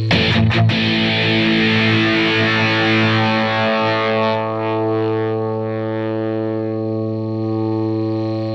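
Electric guitar played through a homebuilt overdrive pedal with a built-in graphic EQ into a software amp model: a few quick distorted strums at the start, then a chord left ringing that slowly dies away.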